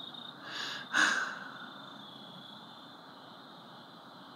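A person's breath: a soft intake about half a second in, then a sharp, louder exhale through the nose, like a sigh or snort, about a second in that quickly fades.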